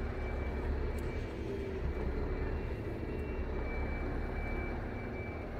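A steady engine drone, heavy in the lows, with a faint steady high-pitched whine above it.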